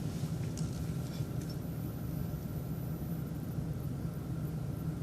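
City transit bus engine idling with a steady low rumble while stopped at a traffic light.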